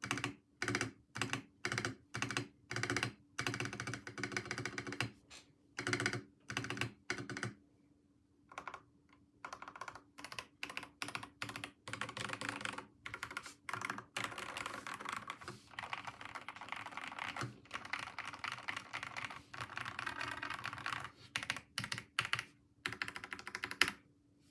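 Typing on a Monsgeek MG75 mechanical keyboard for a sound test. It starts as short bursts of keystrokes with gaps between them, pauses briefly about eight seconds in, then runs as fast continuous typing.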